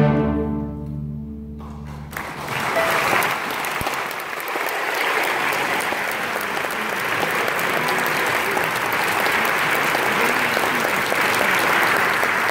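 A student string orchestra's closing chord rings on and stops about two seconds in, then the audience breaks into steady applause.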